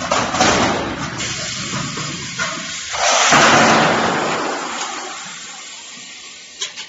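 Metal roofing sheets sliding off an automatic stacker's arms and dropping onto the sheet pile with a loud metallic rush and rumble. A second, louder drop comes about three seconds in and fades slowly, and there is a short clack near the end.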